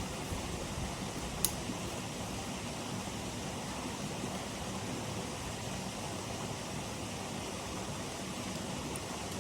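Steady, even background hiss, with one short, sharp click about a second and a half in.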